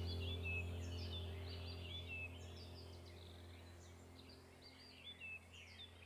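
Many small birds chirping and twittering over a steady low hum, the whole soundscape fading out gradually.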